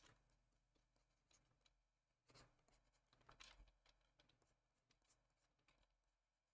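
Near silence, with faint scratches and soft taps of a stylus on a graphics tablet as strokes are painted, loudest about two and a half and three and a half seconds in.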